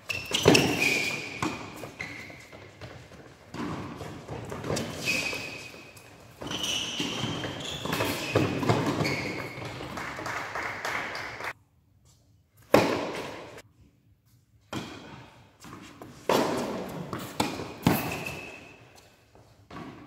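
Tennis rally: racket strikes and ball bounces echoing in a large indoor hall, with short squeaks of shoes on the hard court.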